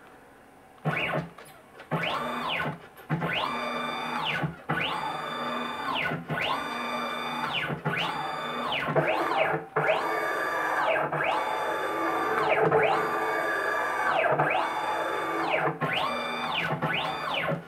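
Stepper motors of a DIY CNC router, driven by a Gecko G540, jogging the axes back and forth in about a dozen short moves. Each move is a whine that rises in pitch as the axis accelerates, holds while it travels, then falls as it decelerates.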